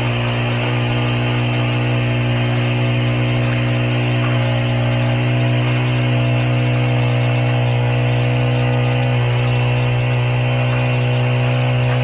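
Small gasoline engine of a vibrating power screed running steadily at full throttle, humming without a break as the screed board vibrates over fresh concrete.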